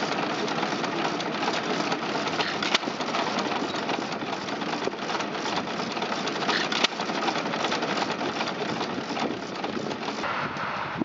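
Several antique hit-and-miss stationary gas engines running together: a steady mechanical clatter with occasional sharper knocks.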